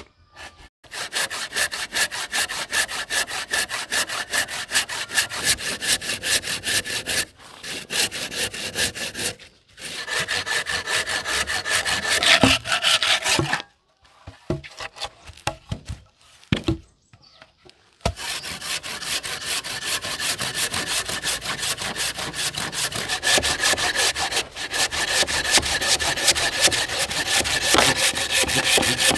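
Hand saw cutting wood in quick, even back-and-forth strokes, with a faint ringing from the blade. The sawing stops briefly twice, then pauses for a few seconds about halfway through before going on.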